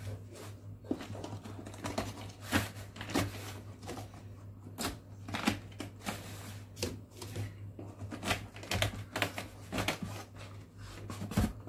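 Irregular light clicks and knocks of vegetables and fingers against a glass jar as small cucumbers are pushed down among packed vegetables, over a steady low hum.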